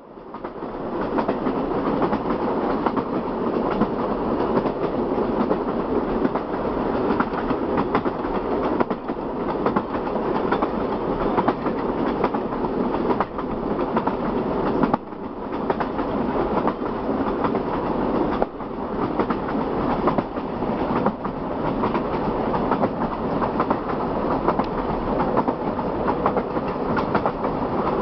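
A passenger train running steadily, its wheels clicking and rattling over the rails in a continuous clatter, with brief drops in level about halfway through.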